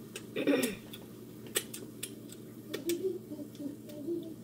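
Scattered light clicks and ticks, with a short louder sound about half a second in.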